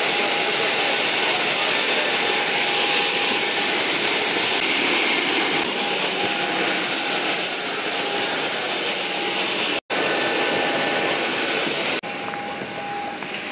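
Aircraft jet turbine running on an airport apron: a loud, steady rush with high, constant whines over it. The sound drops out for an instant about ten seconds in. Near the end it gives way to the quieter background of an airliner cabin.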